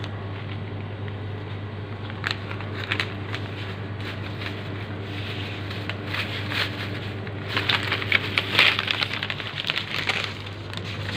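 Thin plastic carrier bag and a plastic snack packet of papad crinkling and rustling as the packet is bagged, in scattered crackles that grow busiest about two-thirds of the way through. A steady low hum runs underneath.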